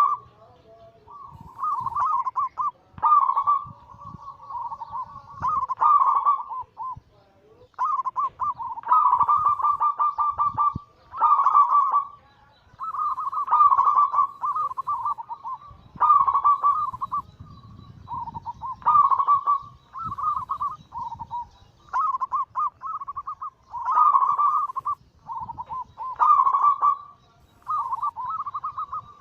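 Zebra dove (perkutut) cooing: a long run of its rolling, trilled coo phrases, each one to two seconds long and repeated with short gaps. This is the bird's 'anggungan' song.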